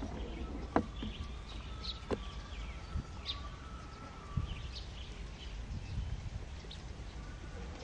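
Outdoor ambience: a low steady rumble with faint, scattered bird chirps, and two sharp clicks in the first couple of seconds.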